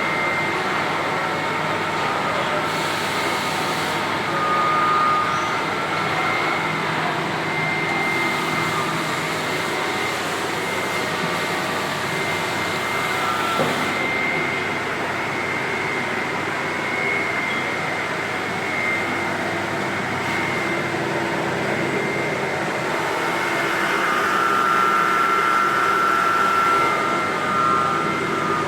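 Heckert CWK 400 D horizontal machining centre running: a steady mechanical hum with high, even whines. Near the end, one whine swells and the sound gets a little louder.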